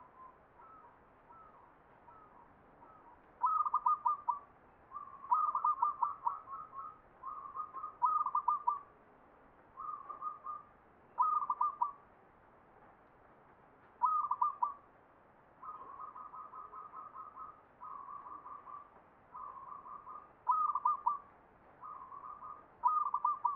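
Caged zebra dove (perkutut) singing its cooing song in the four-beat 'ngepat' style: a dozen or so short, rapid rolling coo phrases, repeated every second or two. The first notes are faint, the loud phrases begin about three seconds in, and some phrases are softer than others.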